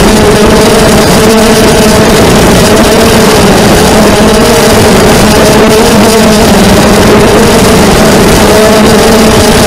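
Brushless motors and propellers of a 250-size FPV racing quadcopter, heard through its onboard camera: a loud, continuous whine whose pitch wavers up and down with the throttle.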